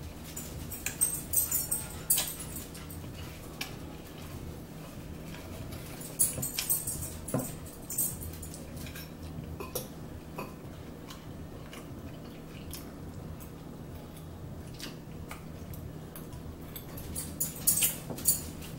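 Eating sounds close to the microphone: chewing and crunching in short bursts, with forks clicking against plates and bowls, over a faint steady low hum.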